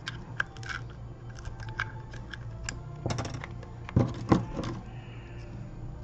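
Scattered small clicks and taps of metal repair tools against the parts of an opened iPhone on a workbench, with two louder knocks about four seconds in, over a steady low hum.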